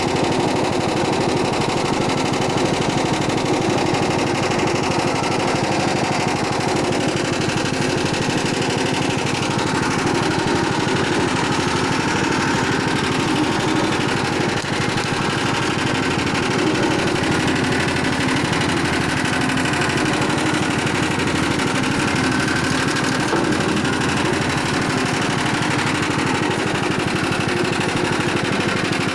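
Coconut milk pressing machine running steadily, its motor giving a continuous drone with a fast, even pulse.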